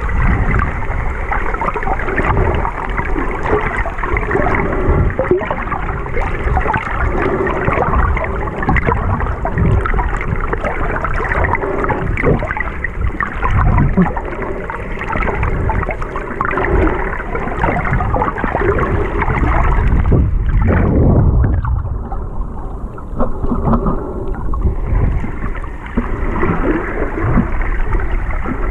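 Underwater noise picked up by a camera held below the surface while snorkeling: a loud, steady, muffled rushing and gurgling of water. It turns duller for a few seconds about three-quarters of the way through.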